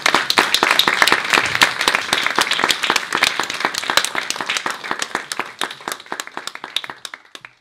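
Audience applauding with dense handclaps that thin out and fade near the end.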